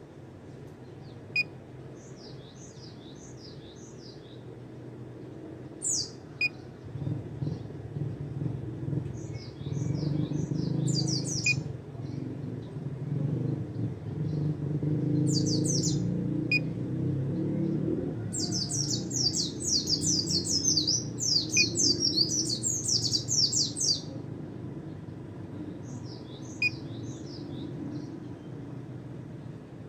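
A caged white-eye (pleci) singing in rapid, high chattering bursts, with its longest and loudest run about two-thirds of the way through. A low rumble swells and fades behind it in the middle.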